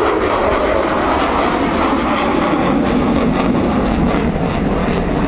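F-16 fighter jet flying its demonstration close by, the engine's jet roar loud and steady with a crackling edge. The roar lowers slightly in pitch over the last few seconds.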